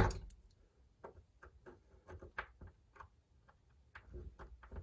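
Small flathead screwdriver driving a tiny screw into the baseboard by hand: one sharp click at the start, then a string of faint, irregular ticks and clicks as the blade turns in the screw head.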